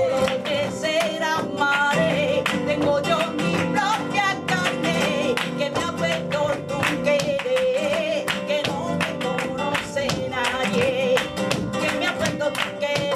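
Live flamenco tangos: acoustic flamenco guitar playing, with a voice singing a wavering, ornamented melodic line and a dense run of sharp percussive strikes over it.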